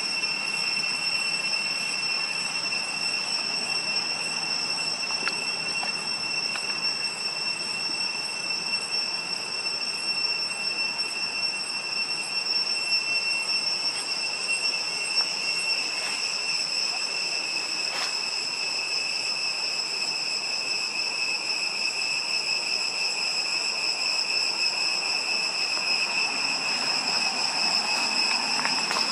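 Insects droning steadily at one high pitch, with a higher overtone, over a faint hiss and a few soft ticks.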